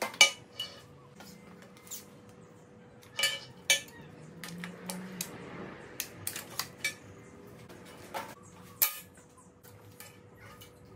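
Scattered metallic clinks and knocks as a tape measure, a MIG torch and a flat steel bar are handled and set down on a perforated steel welding table. The sharpest knocks come just after the start, twice a little past three seconds in, and once near the end.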